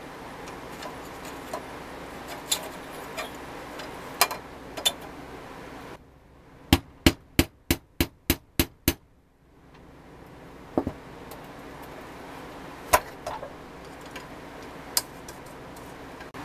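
Pressed-steel toy forklift parts clicking and knocking as they are handled and fitted together, with a run of eight sharp metal taps, nearly four a second, about seven seconds in.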